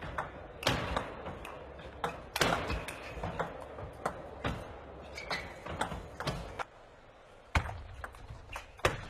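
Table tennis ball clicking sharply off bats and table at an irregular pace through a rally, over the steady noise of an arena crowd; the crowd noise drops quieter about two-thirds of the way through.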